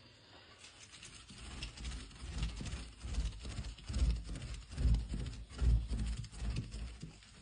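Cleaning sounds: a run of rubbing strokes with dull low thumps, about one a second, building from about two seconds in and fading near the end.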